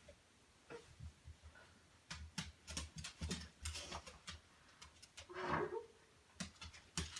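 A dog playing, with a run of sharp clicks and thumps and, about five and a half seconds in, one short voiced noise from the dog.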